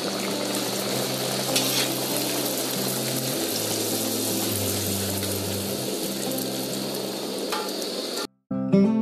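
Puri frying in hot oil in a brass kadai: a steady sizzle as the dough puffs up. The sizzle cuts off suddenly near the end and acoustic guitar music starts.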